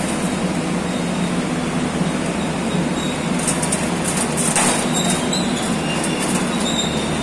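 Passenger train rolling slowly alongside the platform as it pulls in to stop, a steady rumble of wheels on rail. From about halfway through come short high-pitched squeals of wheels against rail and a sharp clack.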